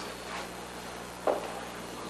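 A man sobbing: two short, uneven sobs, the second and louder one about a second and a half in.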